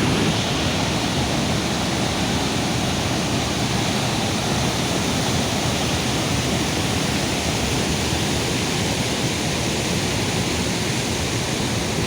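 Steady rush of fast-flowing floodwater, an even roar with no breaks.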